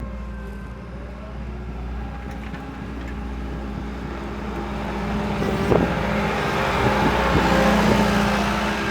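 A road vehicle passing: its noise swells for several seconds and eases near the end, over a steady low hum, with a few light knocks.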